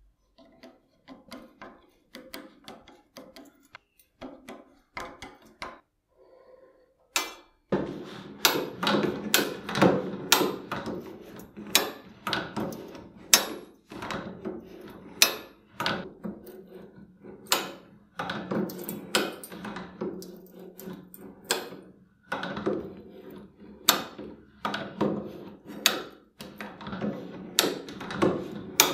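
Metal parts of a saw blade tooth setter clicking and clunking in quick, uneven succession, faint for the first seven seconds and then louder and denser, with a steady low hum underneath.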